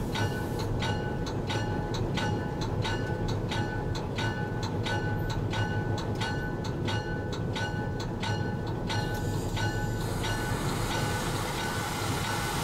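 Locomotive bell ringing steadily, about two strikes a second, over the low running rumble of the locomotive; the bell stops about nine seconds in, leaving the engine and rolling noise.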